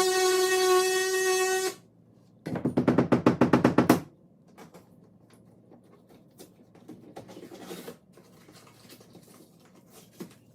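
Power tool cutting the opening in the drywall, running with a steady high whine that stops about 1.7 s in. It is followed by a short burst of rapid, even strokes, then faint scattered clicks and taps.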